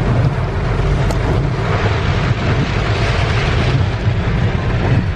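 Heavy rain on a moving car, heard from inside the cabin as a loud, steady rush of water, with the rumble of tyres on the wet road beneath it.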